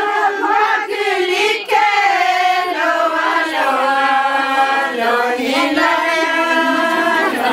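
A group of women singing together unaccompanied, in long held notes, with brief breaks for breath about a second and a half in and again after about five seconds.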